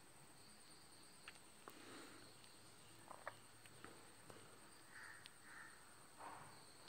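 Near silence, with faint short scratches and small ticks of a graphite pencil shading on drawing paper, a few strokes at a time.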